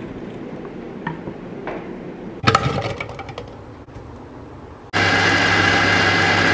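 Electric blender motor running steadily at full speed, grinding shallots and garlic into paste; it starts about five seconds in and is the loudest sound. Before it come a few light knife knocks on a wooden chopping board and a clatter as the pieces drop into the plastic blender jar.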